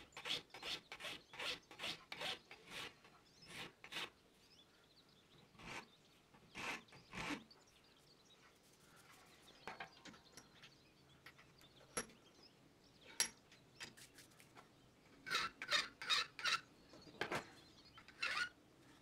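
Hand file scraping across the saw-cut edge of a small piece of metal angle held in a bench vise, in quick back-and-forth strokes, smoothing off the rough saw cut. The strokes thin out after a few seconds, leaving a few light clicks, then pick up again near the end.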